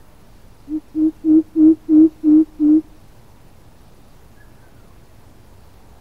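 Greater coucal calling: a run of seven deep, even hoots at one low pitch, about three a second, the first one softer, lasting about two seconds.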